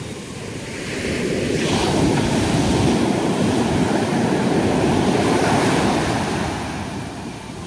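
Ocean surf: waves breaking and foam washing up the sand. The rush swells about a second in, stays loud through the middle and eases off near the end as the wash recedes.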